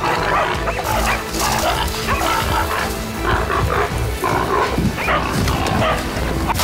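A pack of hunting dogs barking at a wild boar they hold at bay, with the boar's cries mixed in, over background music.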